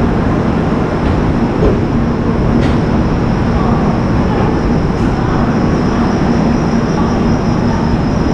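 LHB passenger coach of the Kashi Vishwanath Express rolling slowly along a station platform on arrival, a loud steady rumble of wheels on rail.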